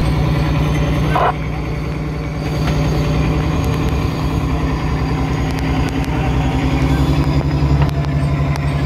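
Fishing boat's engine running steadily at a constant low drone.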